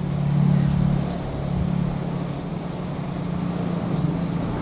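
Diesel locomotive approaching at a distance, its engine a steady low drone that is loudest in the first second and then eases a little. A few short high chirps sound over it.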